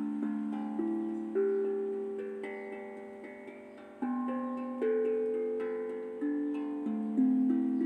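A tuned melodic drum playing a slow, gentle melody. Single notes are struck every half-second to second, and each rings on and dies away slowly, so neighbouring notes overlap.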